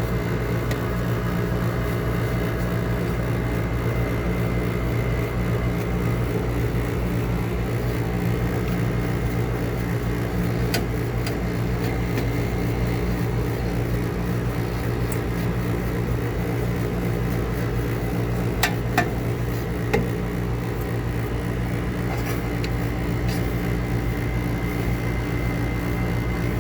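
Steady hum of an electric motor running, from a gas package heating unit or a cleaning tool used on it, with a few sharp taps or clicks, most of them a little past the middle.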